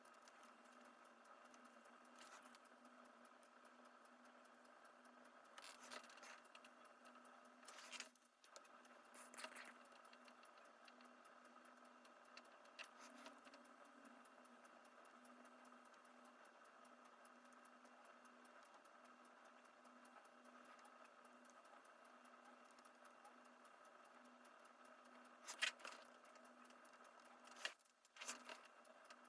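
Near silence: a faint steady hum with a few brief faint clicks and taps scattered through, two of them close together near the end, from small handling while thermal paste is put on a laptop CPU.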